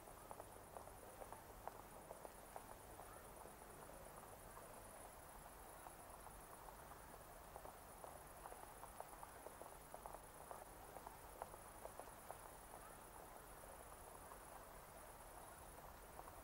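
Near silence: a faint, steady high-pitched hiss with light crackle and a low hum.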